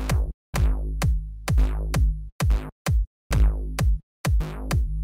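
Electronic dance music with heavy drum-machine beats, deep bass and falling pitch sweeps, broken by several short, abrupt silences.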